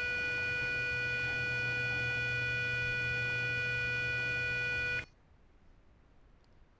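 Arduino clock's alarm buzzer sounding one continuous steady tone, then cutting off suddenly about five seconds in: the alarm has run its full minute without the snooze being used.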